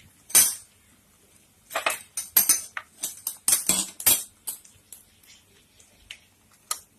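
Metal utensils clinking and knocking against a steel katori mould and pan as the fried pastry cup is worked out of the oil. One sharp clink about half a second in, a quick run of clinks and knocks between about two and four seconds, then a few lighter taps.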